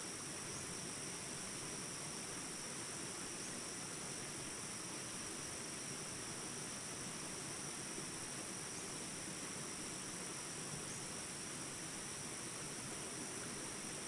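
Small jungle rapids rushing steadily, with a continuous high-pitched insect drone over the water.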